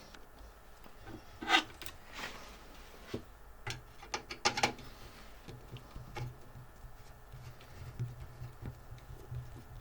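Hands working on a PC's power supply and cabling: rubbing and scraping with a few sharp plastic-and-metal clicks and knocks, the loudest about a second and a half in and around four to five seconds in.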